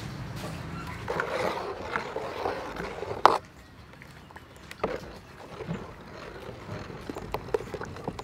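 A metal ladle stirring thick cake batter in an aluminium bowl, with light clinks against the metal in the second half that come more often near the end. A single sharp knock about three seconds in.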